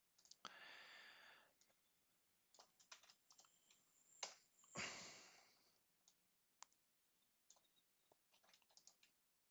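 Faint computer keyboard typing: a few scattered key clicks. Two soft breaths, about half a second and five seconds in, are the loudest sounds.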